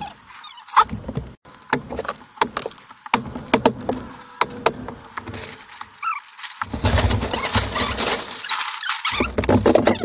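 Sped-up construction work sounds: scattered sharp clicks and knocks with abrupt gaps, then from about two-thirds of the way through a dense, continuous crinkling as clear plastic sheeting is handled and hung over the insulated wall.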